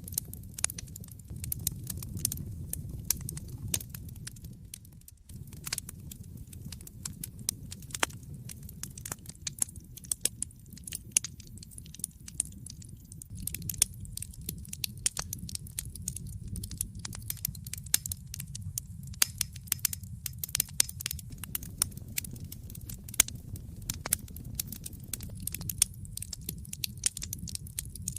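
Wood fire burning in a fireplace: irregular sharp crackles and pops of burning logs over a steady low rumble of the flames.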